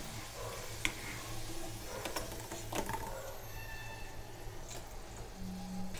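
A wire spider skimmer scooping French fries out of hot oil, its metal clicking lightly against the frying pan a few times, over a steady low hum.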